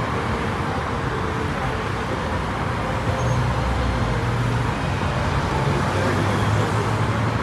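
Road traffic: cars driving past on a city street, a steady wash of engine and tyre noise, with a low engine hum getting stronger about three seconds in.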